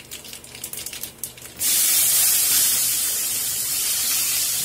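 Chopped onion tipped into hot oil that holds a tempering of mustard seeds and dals: after faint crackling, a loud steady sizzle starts suddenly about a second and a half in.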